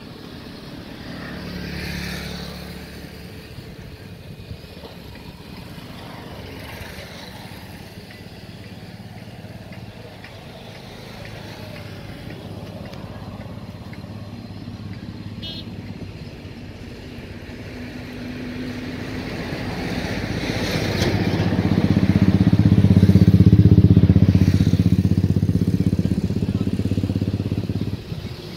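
A motor vehicle engine running close by. It swells briefly about two seconds in, then builds steadily to its loudest about two-thirds of the way through and drops away near the end.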